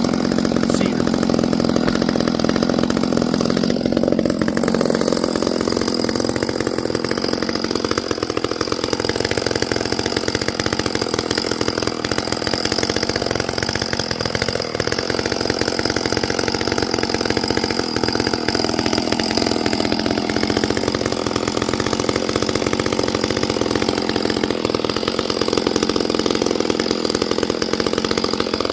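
Gas chainsaw running steadily and continuously.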